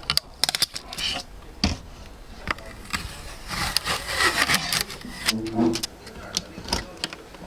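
Handling noises: a string of sharp clicks and knocks mixed with stretches of scraping and rubbing, as of hard parts and packaging being handled.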